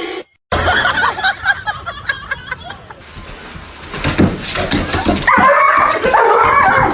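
A pet vocalising in a string of bending, pitched calls, loudest near the end, mixed with a person's voice.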